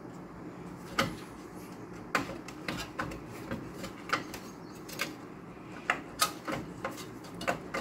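Scattered light clicks and knocks of hard plastic against a steel computer case, as the green plastic heatsink shroud of a desktop PC is unclipped and lifted out, over a low steady hum.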